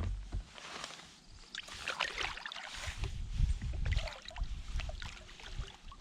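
Irregular splashing and sloshing of river water around a small boat, with gusts of low rumble.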